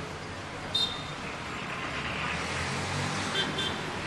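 Street traffic noise with a motor vehicle passing, its engine hum swelling midway. A short high chirp or beep sounds about a second in, and two more come close together near the end.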